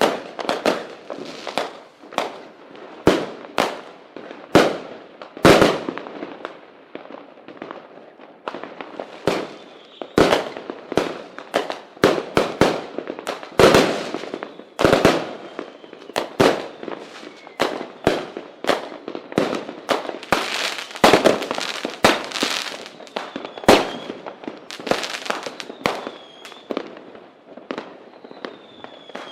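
Fireworks going off: a dense, irregular string of sharp bangs and firecracker pops, two or three a second without a pause. A few faint high whistles come through in the last few seconds.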